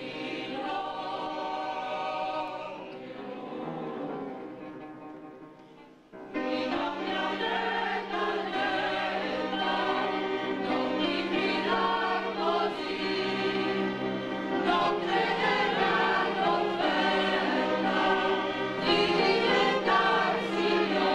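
A choir singing with musical accompaniment. A held passage fades away about six seconds in, then a louder, fuller section starts abruptly over a steady low note.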